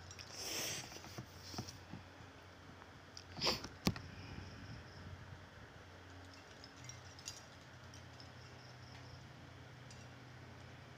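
Quiet room with a brief rustle in the first second and another short rustle ending in a sharp click about four seconds in, then a faint steady low hum.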